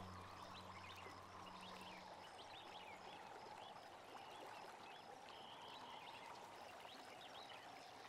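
Near silence: faint outdoor ambience of scattered small-bird chirps over a soft steady hiss, with the low end of background music fading out in the first two seconds.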